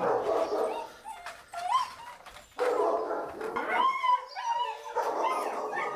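German Shepherd puppies whining and yipping, several high voices overlapping, with a few clear rising-and-falling whimpers about two and four seconds in.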